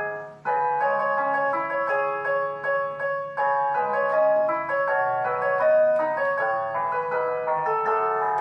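Digital keyboard played with a piano sound, a flowing melody over sustained chords with both hands. The playing breaks off briefly about half a second in, then carries on.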